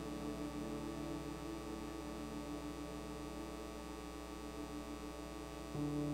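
Soft music of held keyboard chords, one chord sustained and then a fuller, louder chord coming in near the end.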